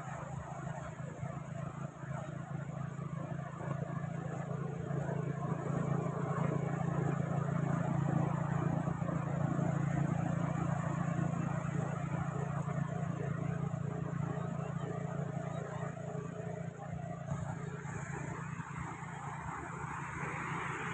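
Sea waves washing onto the shore, a slow swell that rises to a peak about halfway through and then eases, over a steady low hum.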